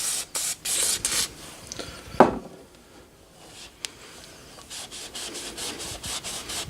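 Engine cylinder bores being wiped out by hand with WD-40, in quick rubbing strokes, to clean off the last residue before the bore is treated with Quick Seat. A single knock comes about two seconds in, and after a quieter stretch the rubbing picks up again at a steady quick pace.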